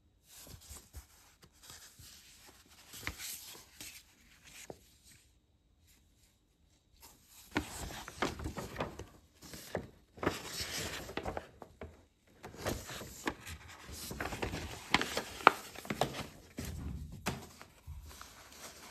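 Paper rustling and crinkling with many small crackles as printed paper inserts and a folded quick start guide are handled and opened out, and a headset's paper wrapping is rubbed in its cardboard box. Soft at first, louder and busier from about seven seconds in.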